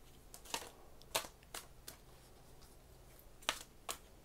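A deck of tarot cards being shuffled by hand: about six short, sharp card slaps and flicks at uneven intervals.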